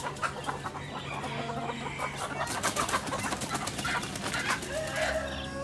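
Caged hens clucking, with sharp rustles and flaps of wings as one hen is caught and handled.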